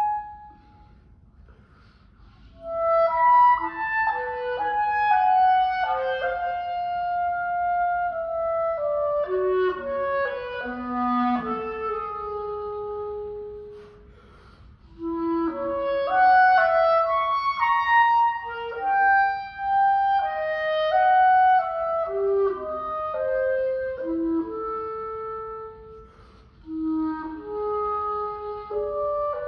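Unaccompanied solo clarinet playing a melodic line in phrases, one note at a time, with short breaths between phrases; it comes in after a pause of about two and a half seconds.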